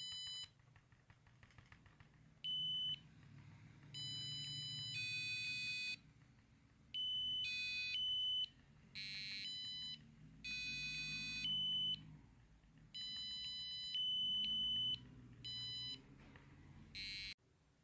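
Piezo buzzer beeping a string of steady high-pitched tones, each about half a second to a second long with short gaps, the pitch changing from beep to beep. A sound detector board hears each beep and sets the next tone's frequency by its loudness, so the buzzer feeds back on itself in an endless loop.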